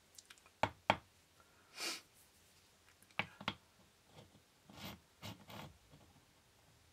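A small flat slate tile handled on a stone block: two sharp clacks early, a short scrape about two seconds in, another pair of clacks a little after three seconds, then softer sliding and rubbing as it is set in place.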